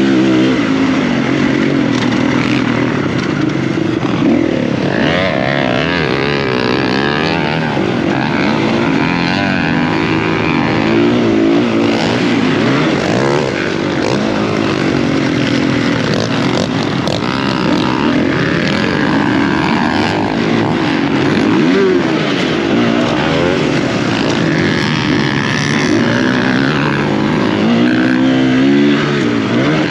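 Motocross bike engine heard from on board, its revs rising and falling again and again as it is ridden hard around the track.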